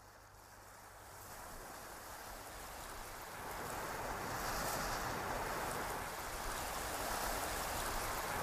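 Sea surf washing on the shore, a steady rushing noise that fades in over the first few seconds and then holds.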